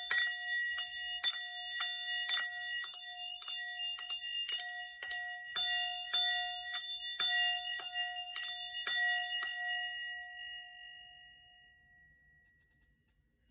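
Singing bowl ringing as it is struck over and over with small bells, about two strikes a second, each strike jingling over a steady ringing tone. The strikes stop about nine and a half seconds in, and the ringing fades away over the next few seconds.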